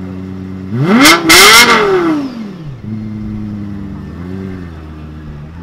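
Lexus LFA's V10 idling, then revved hard about a second in: a quick rise in two stabs to high revs, falling back to idle by about three seconds in, followed by a smaller blip near the end.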